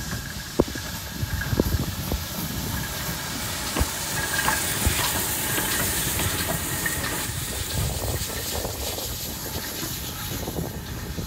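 GWR 5101-class large prairie tank engine No. 5199 running slowly past, its steam hissing loudest as it draws level, over a low rumble of the moving engine. A few sharp knocks come in the first few seconds.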